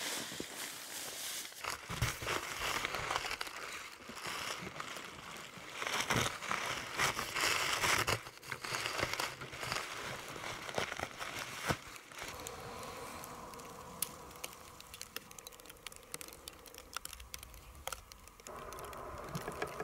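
Rustling and crinkling of camping gear being handled, with many scattered clicks and knocks. About twelve seconds in it gives way to a quieter, steadier background with a faint hum and occasional clicks.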